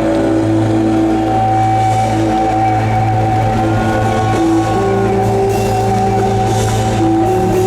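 Live rock band playing: long sustained electric guitar notes that change pitch now and then, over steady bass and drums.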